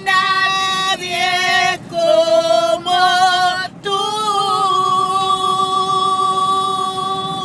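Two women singing together without words, a few held notes with short breaths between them, then one long sustained note from about four seconds in that slowly fades.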